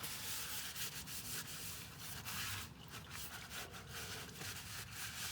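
Continuous rubbing and scraping as a tool is fitted and worked under the car, many small scrapes with no steady tone.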